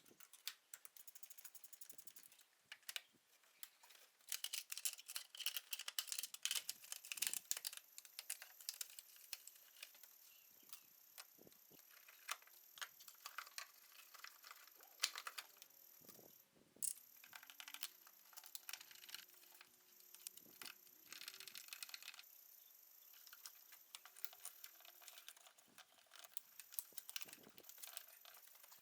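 Faint, scattered light clicks and small metallic rattles of hand tools and fittings being handled while a power steering hydraulic line is fitted back in place.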